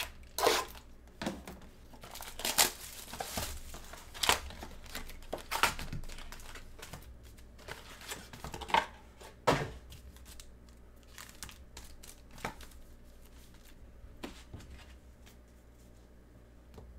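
A trading-card box being torn open and its foil card packs crinkling as they are pulled out and handled. Sharp crackles and tearing come thickly for about the first ten seconds, then thin out to a few faint rustles.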